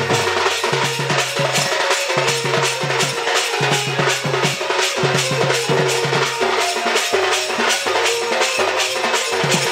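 Live music accompanying a Sambalpuri dand dance: fast, dense drumming and percussion with a held melody line over low notes that change pitch every second or so.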